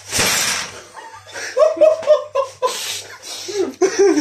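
A brief loud burst of noise at the start, then two men laughing in short chuckling bursts.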